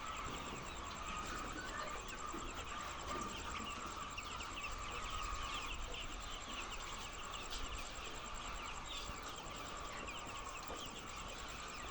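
Steady din of a large flock of chickens, many short calls overlapping continuously.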